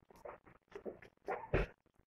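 Short mouth noises of someone eating crab: smacking and brief closed-mouth hums, with a soft low bump late on.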